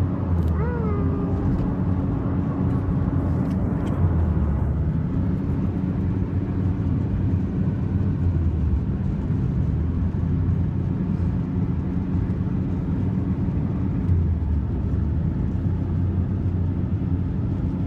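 Car interior while driving: a steady low engine and road rumble with a faint hum.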